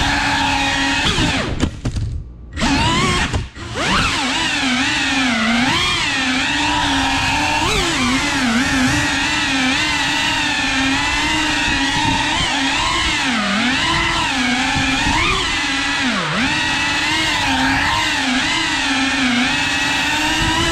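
Cinewhoop FPV quadcopter's motors and ducted propellers whining, the pitch wavering up and down as the throttle changes. About two seconds in the throttle is chopped almost to nothing twice, a second or so apart, before the motors spool back up.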